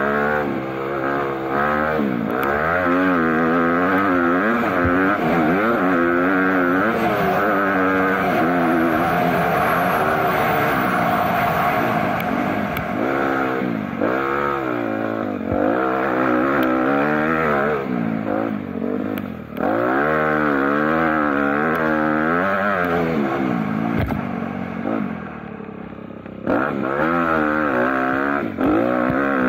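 A motor vehicle's engine revving hard, its pitch climbing and falling again every second or two as it accelerates and backs off. It drops to a quieter, lower note about 25 seconds in, then picks up again.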